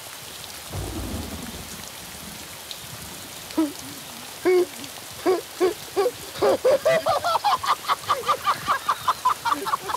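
Steady rain falling, with a low rumble of thunder about a second in. From about halfway, a run of short pitched sounds comes in over the rain, faster and faster.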